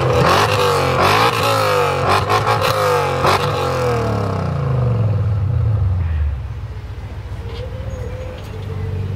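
BMW E39 M5's 4.9-litre V8 through an Eisenmann race exhaust, blipped up and down several times while standing still, with a few sharp pops on the overrun. It then settles to a steady idle, dropping quieter about six seconds in.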